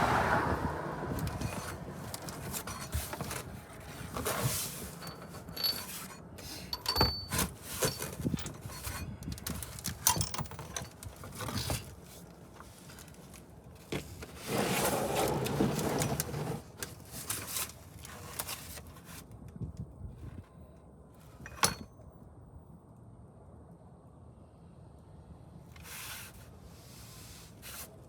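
Irregular clinks, clicks and scrapes of hand tools and metal parts being handled, with one sharp, loud click about two-thirds of the way through. A passing vehicle fades out at the start.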